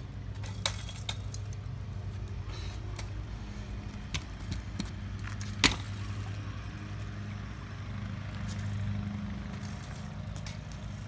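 A steady low motor hum with a few sharp clicks over it, the loudest click about five and a half seconds in.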